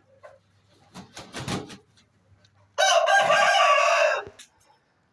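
A rooster crowing once, loud and about a second and a half long, starting roughly three seconds in. A few brief rustles and knocks come shortly before it.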